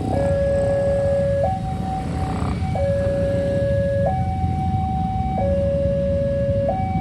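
Railway level-crossing warning alarm sounding a two-tone hi-lo signal, switching between a lower and a higher tone about every 1.3 seconds, over a steady low rumble. The alarm signals that a train is approaching and the crossing barrier is closing.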